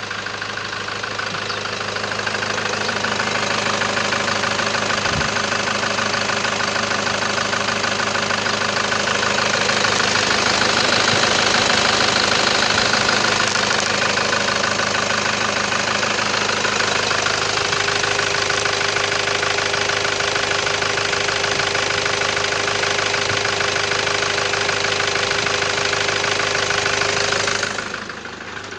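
Toyota Hilux 3.0-litre D-4D turbo-diesel engine (1KD-FTV) idling steadily, quieter near the end.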